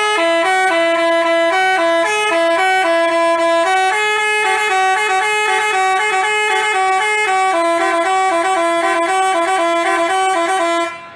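Basuri telolet bus horn playing a tune of held, stepped notes, cutting off abruptly near the end.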